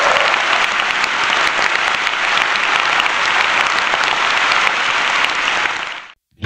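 Audience applauding: many people clapping steadily, dying away quickly near the end.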